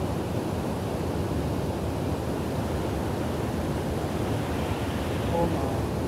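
Wind buffeting a phone's microphone outdoors: a steady, fluttering low rumble with no speech.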